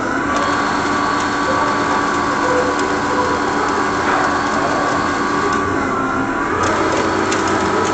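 CNC lathe running a cut with coolant spraying on the workpiece: a steady splashing hiss under a steady whine, which shifts slightly about six and a half seconds in.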